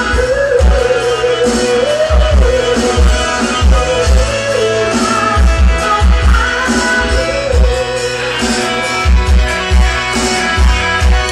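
A woman singing a slow melody into a microphone over amplified backing music with a steady, regular bass beat.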